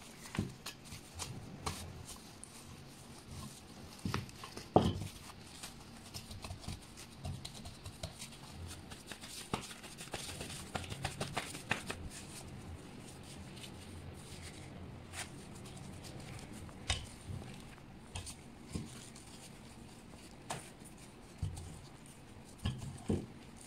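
Scattered light taps, knocks and handling noises, irregular and unrhythmic, over a faint steady low hum.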